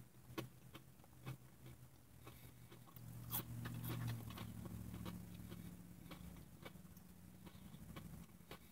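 Faint chewing with small mouth clicks from someone eating crispy tater rounds. A low hum runs under it for a few seconds in the middle.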